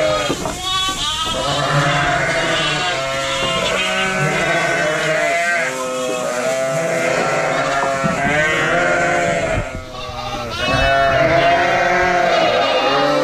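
A flock of ewes and lambs bleating all at once, many overlapping calls with hardly a break. Ewes and lambs are calling for each other as the lambs are let out to rejoin their mothers.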